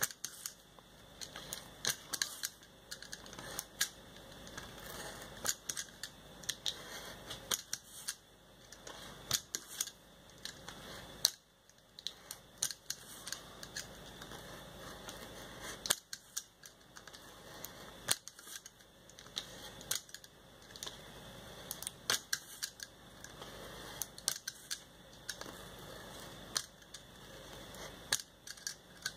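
Snap-off utility knife blade cutting through paper in short strokes: irregular sharp ticks and scratches, several a second, with short pauses between runs of cuts.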